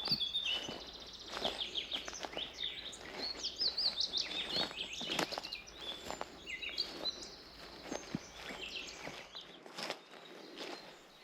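Several forest birds singing and chirping in quick, high, overlapping notes, with footsteps on a forest path at an irregular pace.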